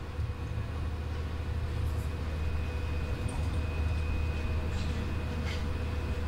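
Monorail train running along its guideway, heard from inside the front car: a steady low rumble with a few faint, even whining tones above it.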